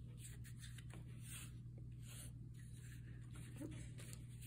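Oil pastel drawing on construction paper: faint, irregular scratchy strokes as an outline is traced, over a steady low hum.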